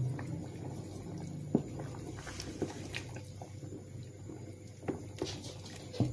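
Pot of vegetable stew simmering at the boil while a wooden spoon stirs it, with several sharp knocks of the spoon against the stainless steel pot, the loudest about a second and a half in. A steady low hum runs underneath.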